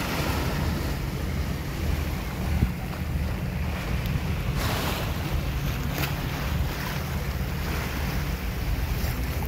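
Wind buffeting the microphone outdoors: a steady, uneven low rumble with a hiss over it.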